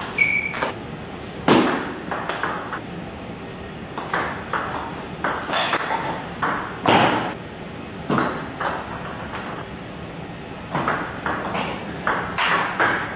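Table tennis rally: a celluloid ball clicking sharply off Butterfly Super ZLC carbon blades and the tabletop, in quick runs of strokes. There are a few brief high squeaks among the hits.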